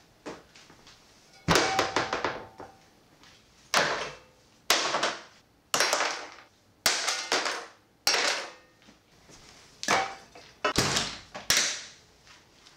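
Cooking gear, including a cast iron skillet and a metal gas canister, set down one piece at a time into a hard plastic case: about ten clunks and knocks, some with a short metallic ring.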